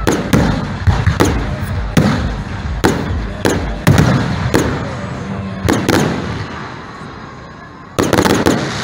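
Aerial firework shells bursting, a sharp bang every half-second or so, each followed by an echoing rumble. The bangs thin out for a second or two, then come as a quick cluster near the end.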